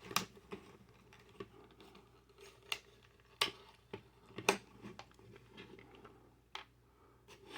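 Hard plastic toy parts clicking and knocking as a toy horse-and-rider figure is worked loose from its plastic display base: a dozen or so irregular sharp clicks, two louder ones around the middle.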